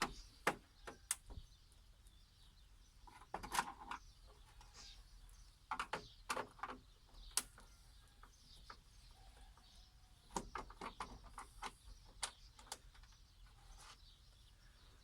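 Faint, scattered clicks and taps of a screwdriver and screws being worked out of a TV's plastic back casing, with birds chirping faintly.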